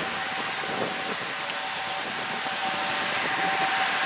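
Electric freight locomotive running: a steady rushing hum with a held whine, getting a little louder near the end, with no rail-joint clicks.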